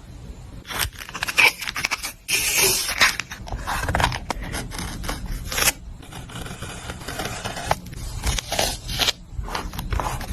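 Paper and craft materials handled close to the microphone: a run of short scrapes and clicks, with a longer, denser scraping stretch about two and a half seconds in.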